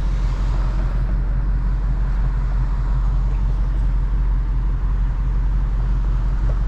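Dodge Charger Hellcat cruising steadily, heard from inside the car: an even low drone from its supercharged 6.2-litre V8 and tyres on a wet road, with no revving or exhaust pops.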